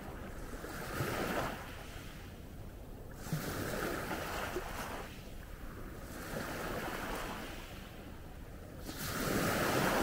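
Small Adriatic waves washing up onto a pebble beach and drawing back, a hissing wash that swells every two to three seconds. The loudest wave comes near the end.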